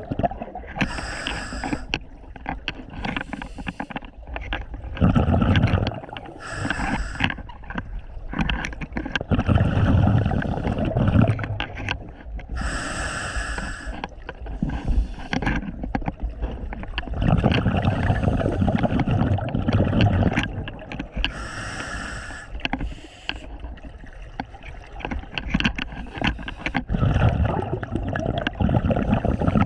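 Scuba diver's regulator breathing heard underwater: short hissing inhalations alternate every few seconds with longer, low, bubbling exhalations.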